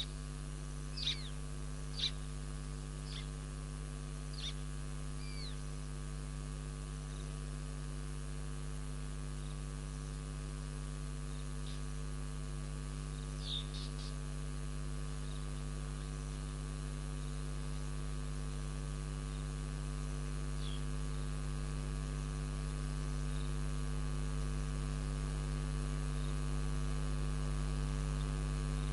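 Steady electrical hum, made of several low, even tones that run throughout. Over it come a handful of short, high bird calls that fall in pitch: most in the first six seconds, a couple more around the middle.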